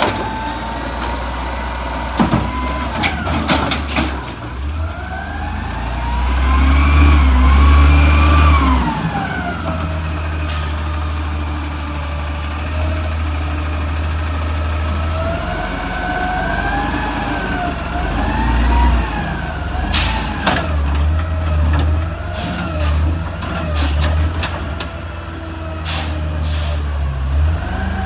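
Automated side-loader garbage truck with its diesel engine running and its hydraulic arm working: a whine that rises and falls twice as the engine revs to drive the hydraulics, over a steady low rumble. Several sharp clanks and knocks of the arm and bin come through.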